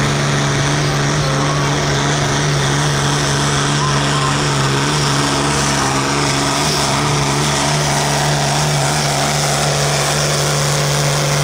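White field-class pulling tractor's engine running at full throttle under load as it drags the weight-transfer sled down the dirt track. It holds one steady, unchanging pitch at high power.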